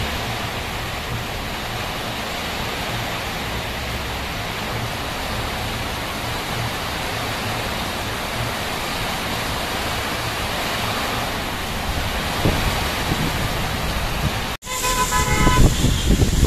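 Heavy rain pouring down in an even, steady hiss. Near the end, after a cut, street traffic on a wet road, with a vehicle horn honking.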